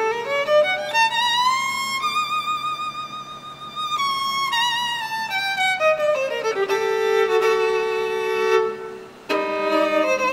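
Music: a violin playing a slow melody of long held notes with vibrato, sliding up in pitch early on and stepping down near the middle.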